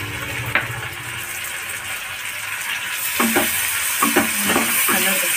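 Chopped tomatoes, onions and green chillies sizzling in hot oil in a kadhai, the frying getting louder about three seconds in. From then on a wooden spatula stirs and scrapes the pan in several short strokes.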